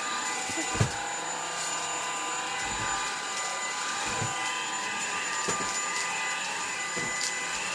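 Vacuum cleaner running steadily, a constant motor whine over a rushing hiss. A few soft knocks come through, the loudest about a second in.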